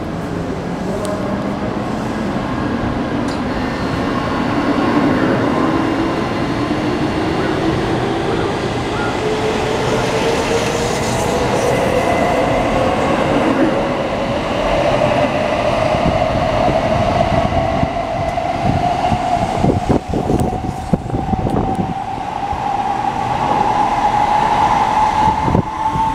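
JR Central N700A Shinkansen accelerating out of the station past the platform. Its traction-motor whine rises steadily in pitch as the train gathers speed, over a loud rumble of wheels on rail.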